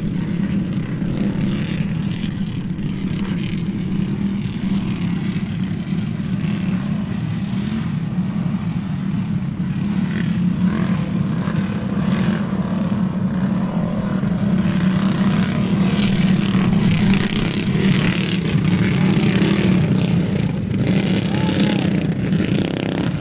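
A pack of small single-seat racers' engines running together around a dirt oval in a steady drone, growing a little louder in the second half, with wind on the microphone.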